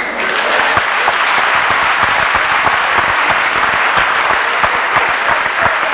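Audience applauding steadily: many hands clapping at once, building just before and holding at an even level.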